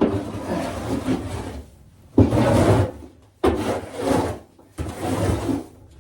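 Hand tool scraping soiled bedding off the floor of a chicken coop, in about four long scrapes with short pauses between them.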